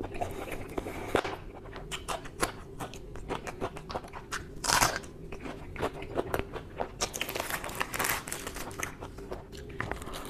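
Close-miked eating: biting into and chewing a raw green chili and soft fried bread, with crisp crunches and wet mouth clicks.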